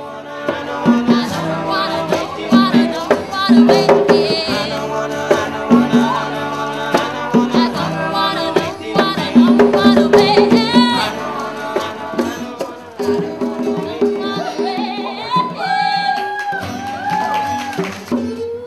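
Live acoustic music: strummed acoustic guitars and hand-played conga drums, with a woman singing into a microphone.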